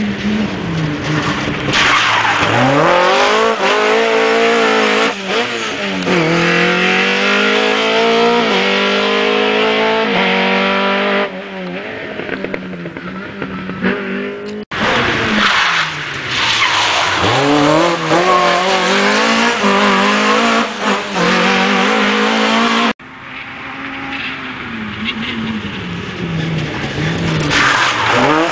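Škoda 130 LR rally car's rear-mounted four-cylinder engine driven hard: it revs up steeply through the gears, dropping briefly in pitch at each shift, as the car passes close by and then fades away, over several passes.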